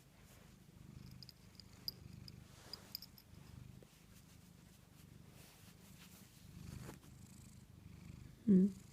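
Domestic tabby cat purring, a steady low rumble, with a brief louder voice sound near the end.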